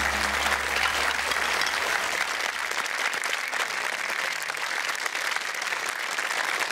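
Studio audience applauding, a dense steady clatter of many hands; the low tail of music fades out during the first three seconds.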